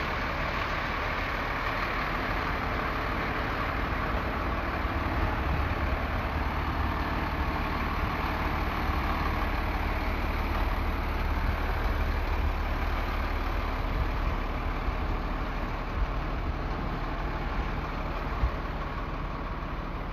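A large engine running steadily at idle, with an even hiss over it that holds without a break.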